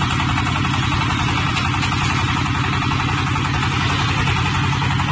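22 HP diesel engine of a portable hydraulic water-well drilling rig running steadily at an even speed, driving the rig's hydraulics.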